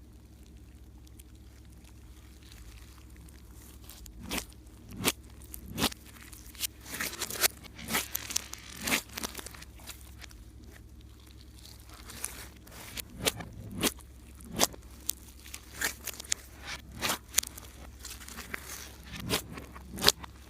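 Slime being worked and squished, giving irregular sharp pops and crackles that start about four seconds in, over a faint low hum.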